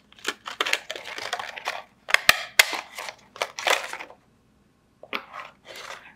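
Clear plastic packaging crinkling and rustling with sharp clicks as gel polish brush caps are handled and pulled out of their plastic sleeve. Two sharp snaps come a little after two seconds, then a pause and a short burst of rustling near the end.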